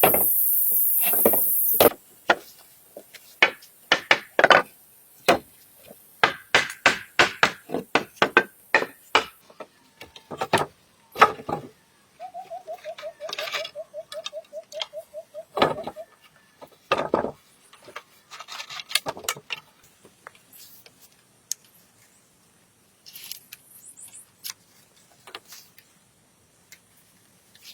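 Hand-tool work on wood: irregular knocks and strikes in quick runs, thinning out to occasional taps later. About halfway through comes a short, evenly pulsing buzz.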